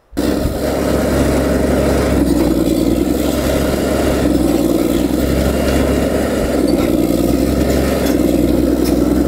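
CAT D8 bulldozer's diesel engine running steadily. It cuts in abruptly at the start.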